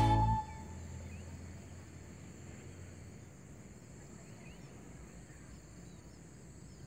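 Rural outdoor ambience: insects trilling steadily at a high pitch, with scattered short bird chirps. A strain of background music ends within the first half-second.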